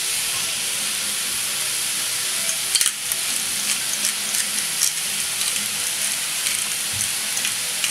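Beef mince with fried onion and carrot sizzling steadily in a non-stick frying pan, with a few light clicks, the sharpest about three seconds in.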